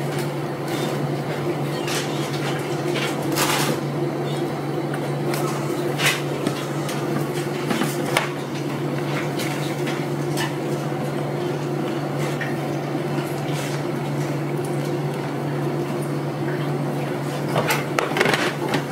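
Steady low machine hum with a few sharp clicks and clatters of metal utensils such as tongs.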